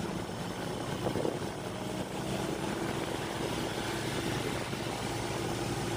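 Motorcycle riding on the road, heard from a bike-mounted camera: steady wind rush over the microphone with a low engine drone underneath.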